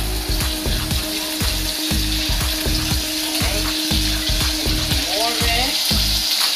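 Bacon strips sizzling in a hot frying pan, the sizzle growing louder toward the end as more strips go in, over repeated low thumps.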